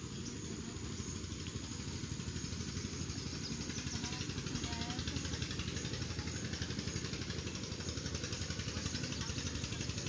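An engine running steadily with a fast, even chug, getting slightly louder partway through.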